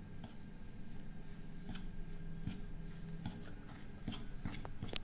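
Metal spoon stirring and pressing moist crushed Oreo crumbs in a bowl: soft irregular scraping with light clicks of the spoon against the bowl, and a sharper click near the end.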